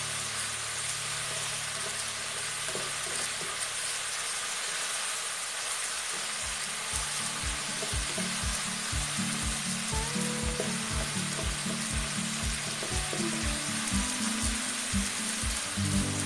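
Bean sprouts, carrot strips and chilli sizzling in a hot pan as they are stir-fried with a spatula. Background music with a steady beat comes in about six seconds in.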